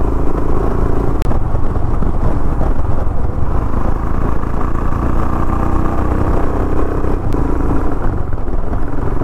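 Royal Enfield Himalayan's single-cylinder engine running steadily while the motorcycle cruises at an even speed, mixed with wind and road noise.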